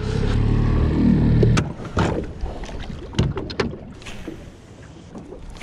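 Small tiller outboard motor running with the boat under way, a loud steady hum that cuts off suddenly about a second and a half in. After it, a few sharp clicks and knocks over soft water and wind noise.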